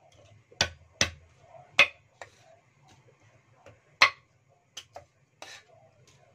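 Meat cleaver chopping lotus root on a thick wooden chopping block: about eight sharp knocks at uneven intervals, the loudest about two and four seconds in.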